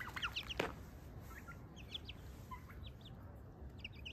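Young chicks peeping in short, faint, high chirps, scattered and repeated, with one sharp knock about half a second in.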